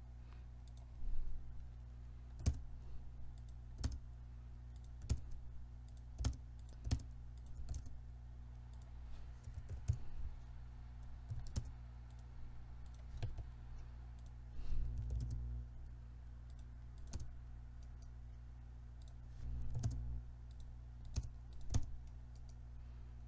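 Scattered computer keyboard keystrokes and mouse clicks, about one or two a second, as short AutoCAD command aliases are typed and drawing points picked, over a steady low hum. Twice a brief low rumble.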